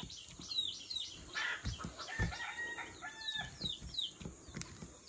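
Chickens calling: a run of short, high, falling peeps, several a second, with a longer pitched call around the middle.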